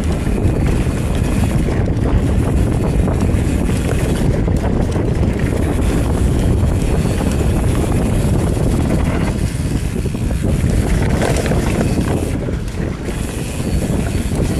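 Mountain bike rolling fast down a dirt singletrack: steady tyre roar on the trail and bike chatter, heavily mixed with wind rushing over the camera's microphone.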